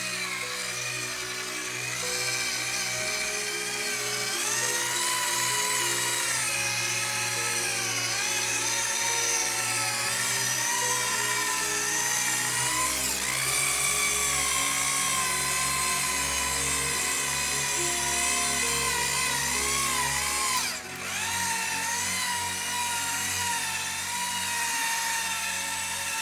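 Background music over the continuous whine of an electric power tool's motor, its pitch sagging now and then as if pressed under load, and briefly dropping out about two thirds of the way through.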